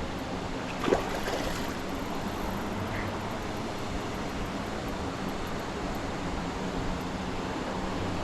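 Creek water rushing steadily in the current, with one brief sharp thump about a second in.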